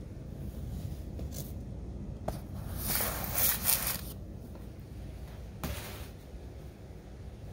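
A sharp click, then scratchy rustling for about a second, then a shorter scrape near the end, over a low steady hum.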